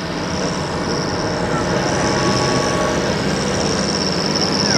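John Deere 7930 tractor's six-cylinder diesel engine running hard under full load while pulling a weight-transfer sledge, growing louder as it comes closer. A steady high whine sits over the engine sound.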